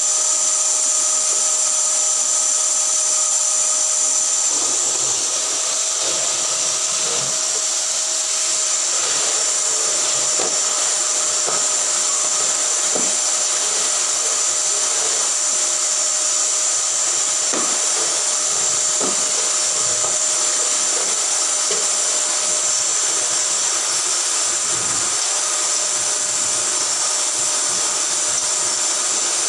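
Canister vacuum cleaner running with a steady whine. From about five seconds in there are light knocks and rubs as the nozzle works over sofa upholstery.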